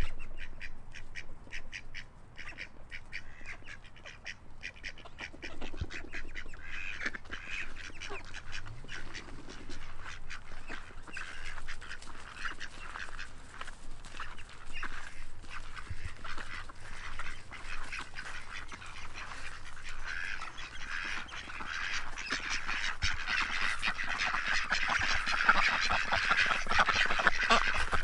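A flock of mallard ducks quacking. The calls start sparse and build into a loud, dense chorus near the end as the flock crowds close.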